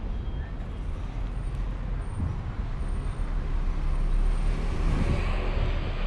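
Street traffic: a motor vehicle running close by with a low rumble, getting louder in the second half as it passes.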